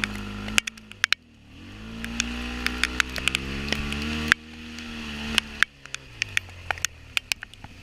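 Off-road vehicle's engine pulling on a rough track, its revs climbing, holding and dropping several times and breaking off abruptly, with frequent sharp knocks and rattles.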